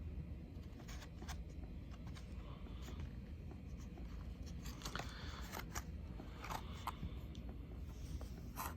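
Faint handling sounds: scattered light clicks and a few short rustles.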